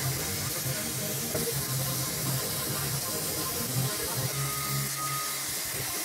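Air plasma cutter (AuroraPRO AIRHOLD 40) cutting slots in sheet steel: a steady hiss from the torch's arc and air stream, over a low hum.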